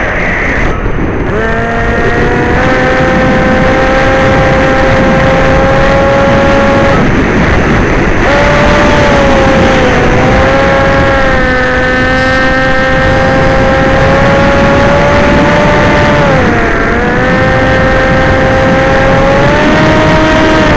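Electric motors and propellers of an FPV drone giving a loud, steady whine. Its pitch sags and climbs back with throttle changes, briefly cutting out near the start and again about 7 seconds in, and dipping sharply around 17 seconds. Wind rush runs beneath it.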